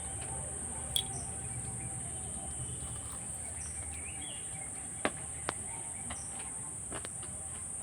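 Steady high-pitched chirring of insects, typical of crickets, with a few short clicks about a second in and again around five seconds in.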